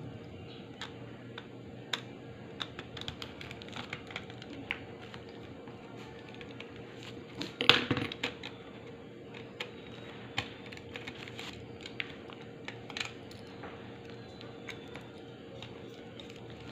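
Small plastic clicks and taps from handling a compact cassette shell and working its screws with a small screwdriver, with a louder cluster of clattering knocks about halfway through. A steady hum runs underneath.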